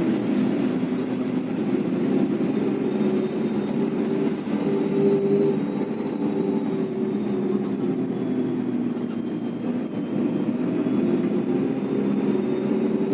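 Bus engine and road noise from a moving bus: a steady rumble with engine tones that step up and down in pitch as it drives.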